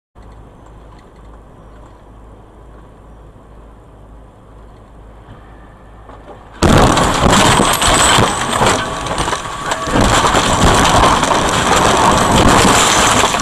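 Dashcam audio of a road crash. First comes quiet, steady road noise inside the vehicle. About halfway through, a sudden loud impact as a car sliding across the lane strikes it, followed by several seconds of loud, harsh crashing noise.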